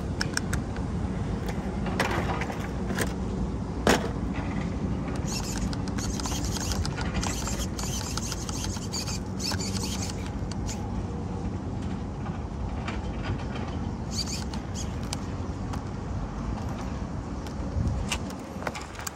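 Small nitro glow engine of a Kyosho Inferno NEO ST 3.0 RC truggy running steadily, with scattered rattles and clicks and a sharp click about four seconds in.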